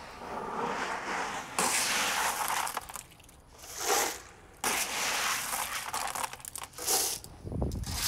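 Crunching, rattling handling noise in uneven bursts with short pauses, as plastic Dutch buckets are worked on by hand. Near the end a heavier rattle sets in as a hand digs into a bucket of expanded clay pebbles.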